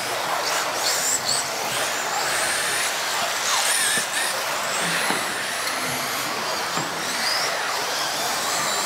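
Several radio-controlled off-road model cars racing on a track, their motors making many overlapping high-pitched whines that rise and fall as they speed up and slow down, over a steady hiss.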